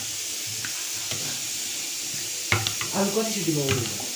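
A metal ladle stirring pani puri water in an aluminium pot over a steady hiss, with one sharp clink of the ladle against the pot about two and a half seconds in.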